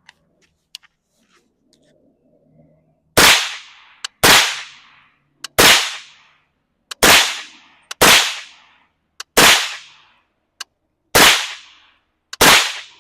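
Suppressed rifle fired eight times at an uneven pace, roughly one shot every second or so. Each shot is a sharp crack with a short fading tail.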